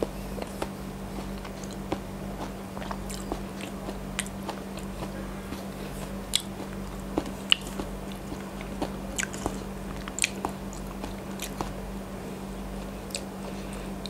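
Close-miked eating of a soft, syrupy Thai dessert: wet chewing and sharp mouth clicks and smacks, scattered irregularly, under a steady low hum.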